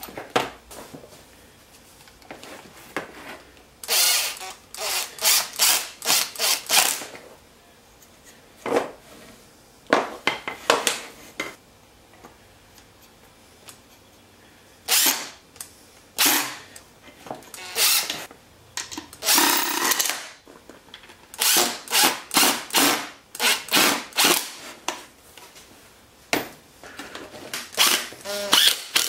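Power drill run in short trigger bursts, several quick pulses at a time with quiet pauses between, and one longer run about two-thirds of the way through.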